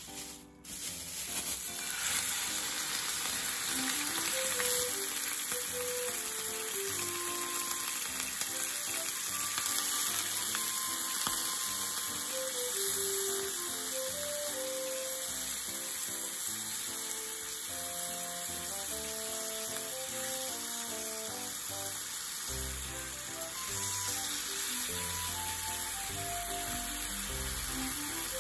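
Pork slices and sliced onion sizzling in hot oil in a frying pan, starting about a second in and then running steadily while they are stirred with chopsticks.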